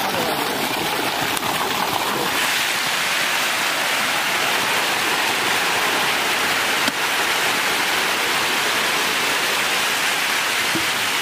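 A dense mass of hybrid magur catfish fry churning and splashing at the pond surface as they feed, making a steady hiss of splashing water that grows brighter after about two seconds.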